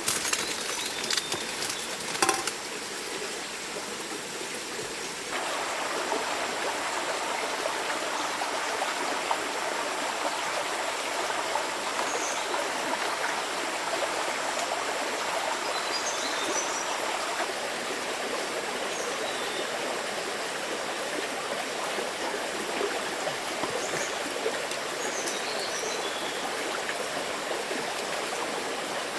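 Steady rush of flowing stream water, which jumps louder suddenly about five seconds in. A few sharp clicks sound near the start, and brief high chirps come now and then later on.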